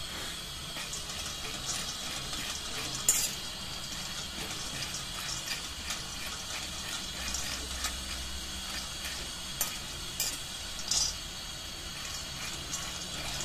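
A steel spoon stirring raw peanuts as they dry-roast in an iron kadai: the nuts rattle and scrape against the pan, with a few sharper clinks of spoon on metal about 3 s in and again around 10 to 11 s. Under it runs a steady hiss, likely the gas stove burning below the pan.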